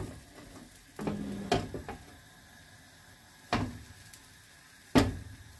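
Sharp kitchen clunks and knocks, five in all, a second or two apart, as cookware, its lid and cupboards are handled.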